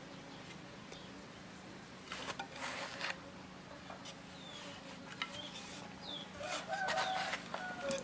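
A rooster crowing once, a call of about one second that is the loudest sound here, near the end. About two seconds in there is a short noisy scrape or rustle.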